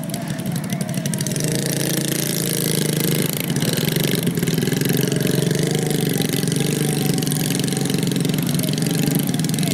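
Small motorcycle engines running steadily as grain-laden rice-field taxi motorcycles push slowly through a muddy paddy, growing a little louder over the first couple of seconds.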